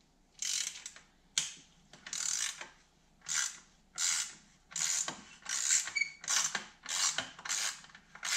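Ratchet wrench being swung back and forth on an engine-mount bolt, a short burst of rapid ratchet clicking on each return stroke, about one every two-thirds of a second, starting about half a second in.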